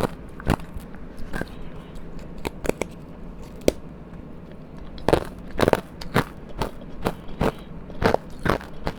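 Close-up crunching and chewing of powdery ice: irregular soft crunches, sparse in the middle and coming thicker from about five seconds in.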